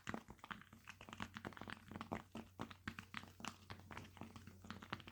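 Fingers tapping and clicking on a unicorn fidget toy for ASMR: many faint, irregular small clicks, a few each second.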